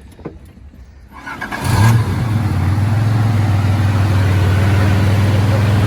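Nissan Z31's turbocharged VG V6 cranking and catching about a second and a half in, with a brief rise in revs, then settling into a steady idle for a fuel pressure check.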